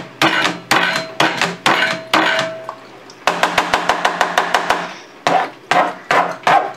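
Metal potato masher pounding a soft green avocado mash against a plastic cutting board: a run of hard knocks, about two to three a second, with a quicker flurry of strokes in the middle.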